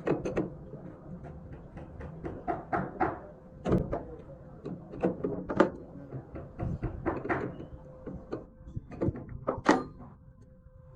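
Irregular knocks and clatter, a few strokes a second at uneven spacing, over a faint steady hum.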